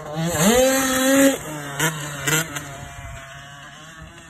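Motocross bike engine revving up sharply about half a second in and held high for about a second, then two short throttle blips, fading as the bike pulls away.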